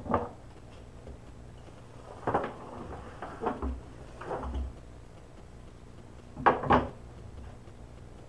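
A series of short knocks and bumps from a ceramic bathroom sink basin with its faucet fitted as it is handled, tipped upright and set down on cardboard. The loudest is a double knock near the end.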